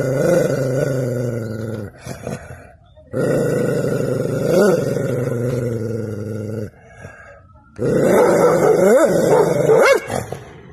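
A dog growling in three long, drawn-out bouts with short gaps between them. Twice the growl swoops up briefly into a higher yowl.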